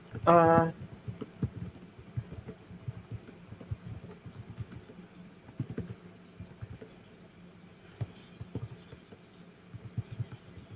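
Computer keyboard being typed on: scattered, irregular light taps and clicks, some close together and some a second or more apart.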